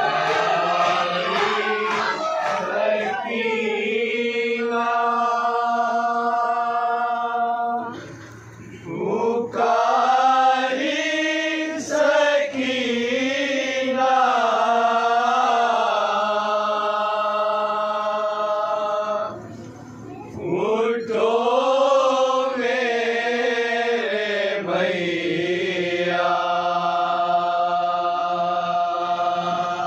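A group of voices chanting a noha, a Shia mourning lament, in chorus. They hold long steady notes and let some lines waver up and down in pitch, with two short pauses about eight and twenty seconds in.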